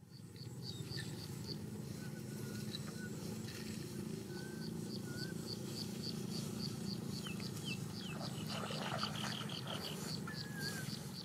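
Open-field ambience with birds calling: a high note repeated about four times a second, short whistled calls and a few quick down-slurred chirps, over a steady low rumble.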